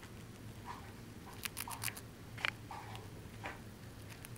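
White dwarf hamster nibbling and chewing food: small irregular crunches and clicks, the sharpest about two and a half seconds in, over a faint steady low hum.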